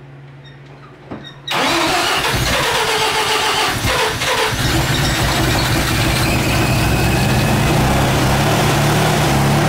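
Mazda RX-7's 13B rotary engine starting: it fires about a second and a half in, runs ragged for a few seconds, then settles into a steady idle. It had been flooded and is running on fresh spark plugs.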